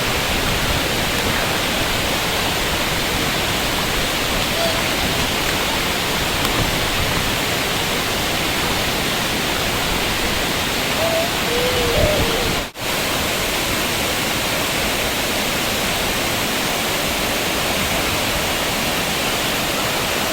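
Waterfall rushing steadily, a constant dense roar of falling water; it cuts out for an instant a little past the middle.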